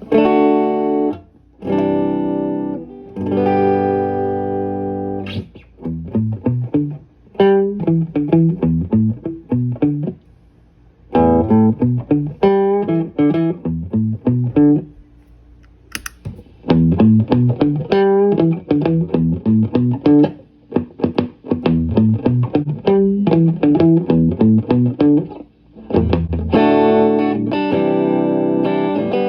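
Electric guitar played through an amp on a clean tone with a touch of amp reverb. It opens with strummed chords, moves to picked single-note lines and arpeggios with short pauses, and returns to chords near the end. A sharp click comes about halfway through.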